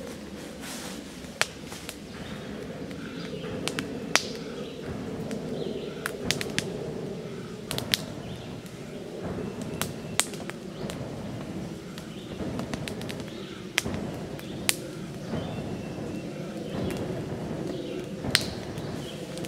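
Cedar kindling fire catching, crackling with scattered sharp pops over a steady rush of air blown into the base of the fire.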